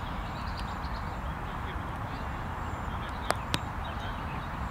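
Steady open-air background noise on a cricket field with a low rumble, broken about three seconds in by two sharp clicks a quarter second apart.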